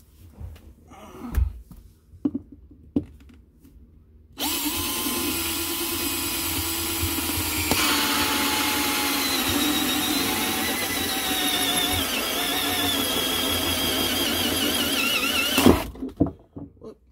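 Cordless drill turning a hole saw into the pantry floor. A few knocks, then about four seconds in the drill starts and runs steadily for about eleven seconds, its whine dropping a little in pitch as the saw bites. It stops with a thud near the end, once the saw has cut through the floor's top layer.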